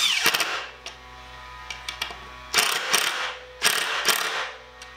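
DeWalt cordless impact driver driving Phillips screws into wooden boards in three short runs, its hammer mechanism rattling. The first run ends with the motor winding down in pitch just after the start.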